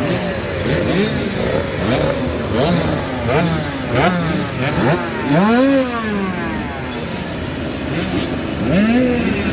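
Several 65cc two-stroke motocross bikes revving hard and cutting the throttle again and again, their engine notes rising and falling in quick, overlapping sweeps.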